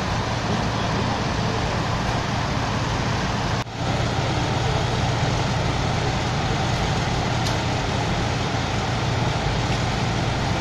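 Fire engines' engines running at a steady idle: a low drone under a constant hiss, dipping out for a moment about three and a half seconds in.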